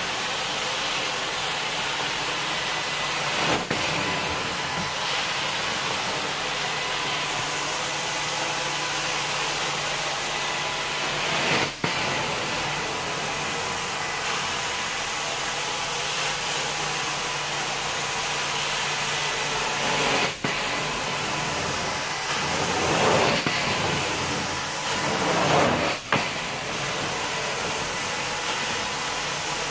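Carpet-cleaning extraction wand drawn across carpet: the steady, loud hiss of its suction pulling water and dirt from the pile. The sound dips briefly four times and swells a couple of times near the end.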